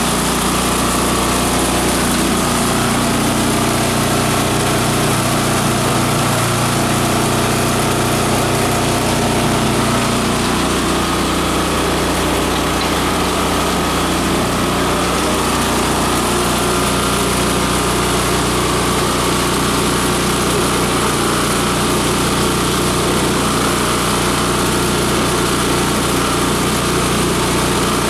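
Multi-purpose chopper/shredder/grinder machine running steadily under load, its multi-blade rotor grinding dry plant material into coarse and fine particles.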